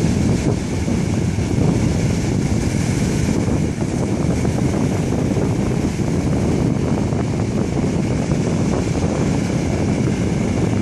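Wind buffeting the microphone over the steady running of a Zap Cat inflatable racing powerboat, with the rush of water around the hull.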